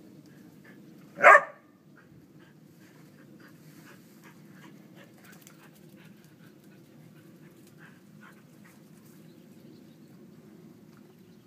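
A whippet gives one short, sharp bark about a second in. Afterwards there are only faint, scattered scratches of paws digging in loose soil.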